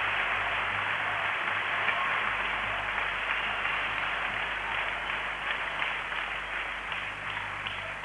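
Arena crowd applauding after a point in a table tennis match, the dense applause thinning toward the end into more separate claps.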